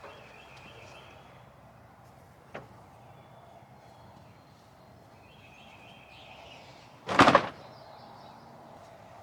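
A van door slamming shut once, loud and short, about seven seconds in, after a faint knock about two and a half seconds in.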